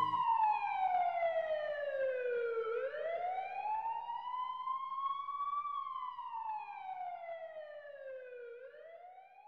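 A siren wailing on its own, its pitch sliding slowly down, up, down and up again, about three seconds each way, and fading away toward the end.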